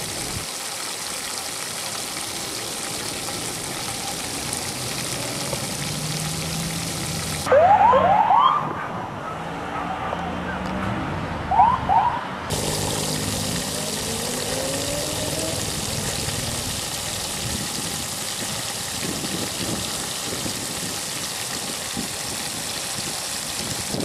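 Emergency vehicle siren giving short rising whoops, two quick pairs about four seconds apart and loud, over a steady rushing noise.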